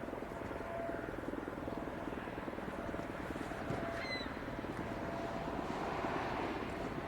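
ASC OM-117 electromechanical warning siren winding down at low speed after its test signal: a low, rapidly pulsing growl with a faint steady tone above it. A short high chirp comes about four seconds in.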